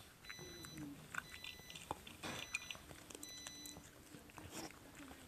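Yorkshire terrier eating small pieces of food from a bowl: irregular crunching and chewing, with sharp little clicks of teeth and food against the bowl.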